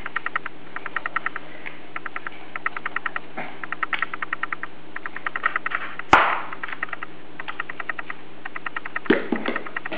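A plastic spice jar of dried parsley shaken hard in quick bursts, each shake a light tick at about ten a second, with short pauses between bursts. Once, about six seconds in, there is a single sharp knock.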